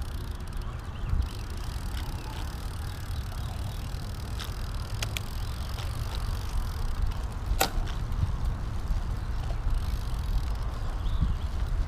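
Trek 5500 carbon road bike rolling slowly over a concrete path, a steady low rumble of the tyres and ride, with three sharp clicks in the middle, the loudest about two-thirds through.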